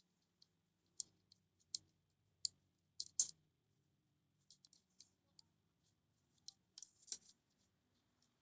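Scattered sharp clicks and light taps of small parts and tools being handled on a cordless impact wrench's housing, in one cluster from about a second in to just past three seconds and another from about four and a half to seven seconds.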